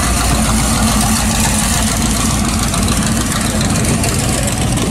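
Engine of an early-1950s Chevrolet gasser idling steadily as the car rolls slowly past.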